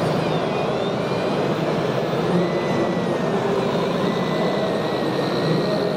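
Electric hydraulic pump of a 1/14-scale RC O&K RH6.6 excavator running while the arm and bucket dig soil: a thin whine that rises and falls in pitch, over a steady background din.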